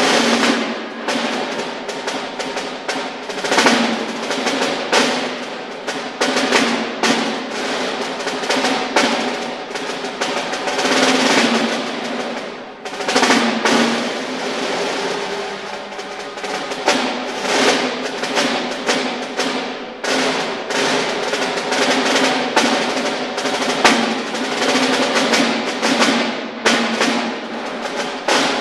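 Solo snare drum played with sticks: fast rolls that swell and fade, mixed with accented single strokes. The playing dips briefly about halfway through, then carries on.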